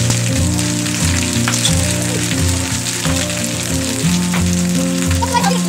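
Heavy rain hissing on wet ground, with scattered small impacts, over background music of low held notes that change several times a second.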